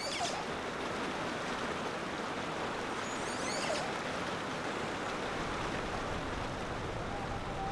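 Stream water rushing and splashing over rocks, a steady rush. Two brief groups of high chirps come through it, one at the start and one about three seconds in.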